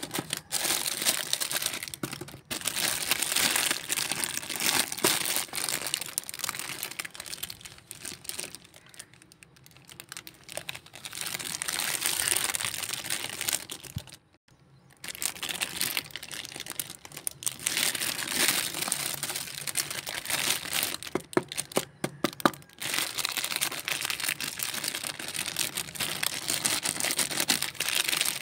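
Clear plastic packaging on a toy kitchen set crinkling and rustling as hands handle and press on it, in irregular crackles with a brief pause about halfway through.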